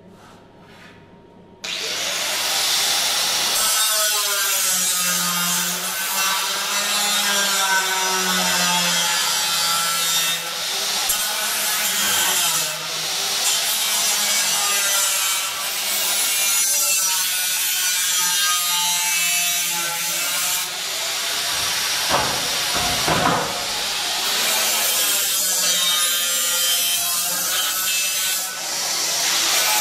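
Angle grinder with a cutting disc cutting through steel channel, starting about two seconds in; the motor's whine rises and falls as the disc bites into the metal. A couple of knocks are heard about two-thirds through.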